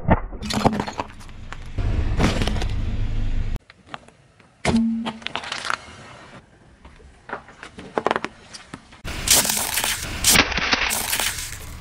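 A car tyre crushing one object after another: sharp cracks and crunches of a ceramic figurine and plastic packaging breaking under the wheel. Several abrupt cuts split the run into separate crushes.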